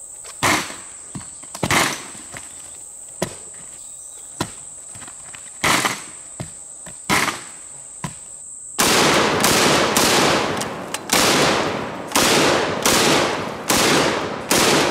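Street Sweeper 12-gauge revolving-drum shotgun fired repeatedly. First about six single shots, spaced a second or more apart, over a steady high insect drone. Then about nine seconds in comes a rapid, louder string of about ten shots, roughly two a second.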